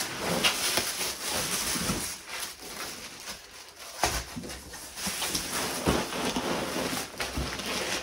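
Packing materials being handled: plastic wrap crinkling, foam packing pieces and a cardboard box lid rustling, with three light knocks in the second half.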